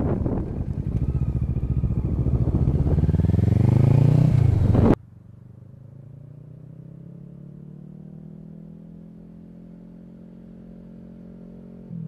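Kawasaki ER-6n parallel-twin engine through a full Akrapovic exhaust without its dB-killer, accelerating hard with its pitch rising, loud and slightly distorted. About five seconds in it cuts abruptly to a much quieter, steady engine drone.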